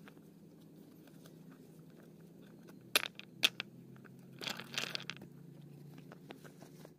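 Two sharp knocks about half a second apart, then a brief crunching scrape, over a low steady hum.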